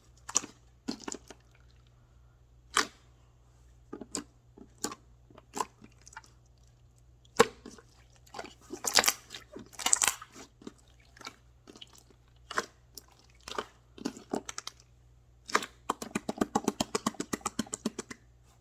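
Chewing and crunching food in separate bites, with a busier stretch about halfway through and a fast run of rapid crunches near the end.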